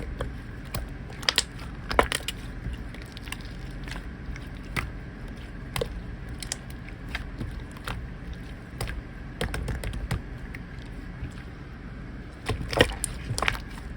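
Slime being squished and pressed, making scattered, irregular sharp clicks and pops, with a louder cluster of them near the end.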